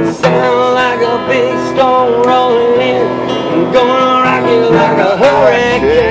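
Country-folk song played live: acoustic guitar strumming under a lead melody of long, wavering held notes that bend in pitch.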